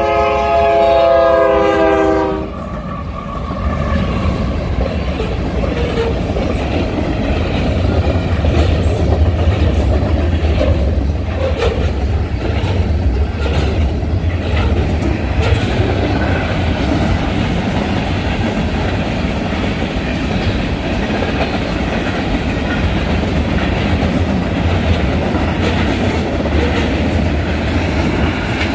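Union Pacific locomotive horn sounding a chord, cutting off about two seconds in. Then a long manifest freight train of hopper, tank and flat cars rolls past with a steady rumble of wheels and the clickety-clack of wheels over rail joints.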